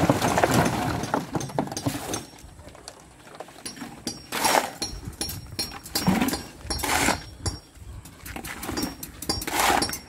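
Wet concrete sliding out of a tipped bucket into a wooden column form for the first two seconds or so. Then several separate scraping swishes, which fit shovels working mixed concrete.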